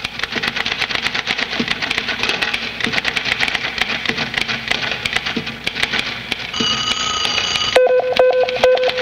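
Rapid clatter of office typewriter keys, then near the end a brief steady tone, followed by the fast repeated ringing of a telephone bell.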